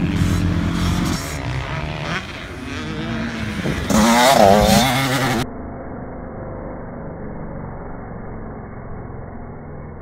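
Dirt bike engines revving on a motocross track. About four seconds in one bike revs loudly close by with a wavering pitch. About five and a half seconds in the sound turns abruptly duller and quieter: a steady engine drone from farther away.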